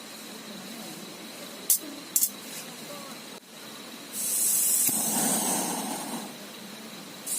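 Two sharp clicks, then a loud hiss lasting about two seconds, starting a little past halfway.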